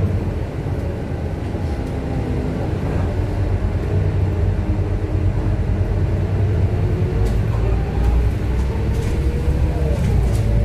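Scania K230UB single-deck city bus running, its five-cylinder diesel giving a steady low rumble, with whining tones that glide down and then up in pitch as it changes speed.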